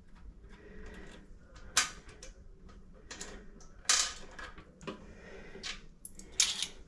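Hard objects clicking and knocking during hands-on work: a few sharp knocks, loudest about two seconds in, at four seconds and near the end, with quieter rustling and handling noise between.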